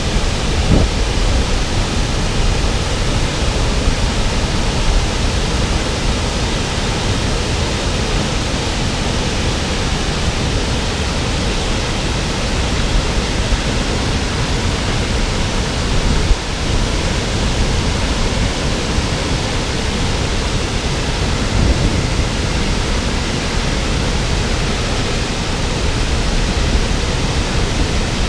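Loud, steady rush of water falling down a 15-metre waterfall on a river.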